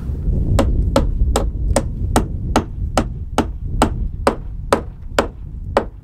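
Hammer driving nails to fasten a roof panel back on: about a dozen sharp, evenly paced blows, two to three a second, stopping just before the end, over a low rumble.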